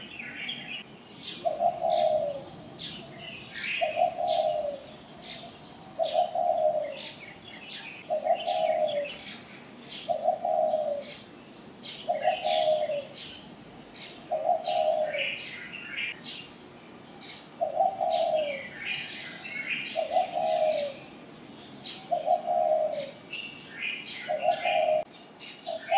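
Outdoor birdsong: one bird repeats a low, slightly falling note evenly, a little less than once a second, while smaller birds chirp rapidly in a higher register over it.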